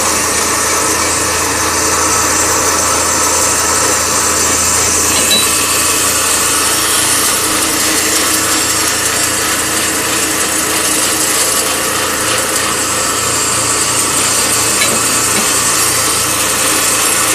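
JG-400 electric meat band saw running and cutting through a large frozen block of meat and bone: a steady, continuous rasp of the blade over a low hum, without pause.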